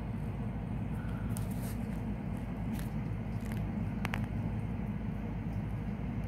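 Steady low background hum with a few faint clicks and rubs from the phone camera being handled while its focus is adjusted.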